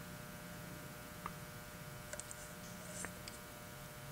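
Faint steady electrical hum, with a few faint light ticks scattered through it.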